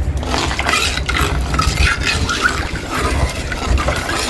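Watery fish-curry gravy being stirred in a cooking pot just after water was added: irregular sloshing and scraping.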